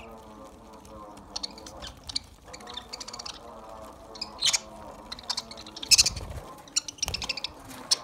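A flock of budgerigars feeding on fresh greens: scattered sharp chirps and pecking clicks over a continuous low, pitched chatter, with a dull thump about six seconds in.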